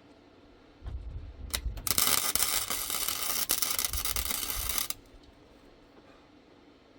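MIG welder arc crackling for about three seconds as a tack weld is laid on the steel gate frame, with the welder set to 3 for amperage and 6 for wire speed. A click and some low handling noise come just before the arc strikes.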